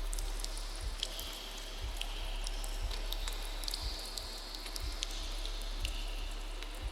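A deep heartbeat pulse, a double beat about once a second, the audience's averaged collective heartbeat, under dripping and trickling water recorded in thermal baths.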